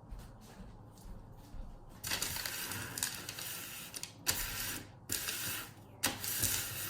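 A crumpled paper instruction sheet being smoothed flat by hand, crinkling and rustling in several strokes that start about two seconds in.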